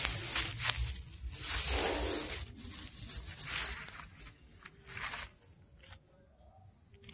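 Rustling and crackling of shrub leaves being handled and brushed, in irregular bursts that are loudest in the first couple of seconds, then patchier, fading to near quiet about six seconds in.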